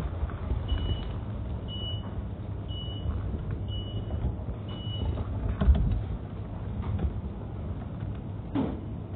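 An electronic beeper gives five short, even, high beeps about a second apart, over a low rumble of movement; a short falling squeak comes near the end.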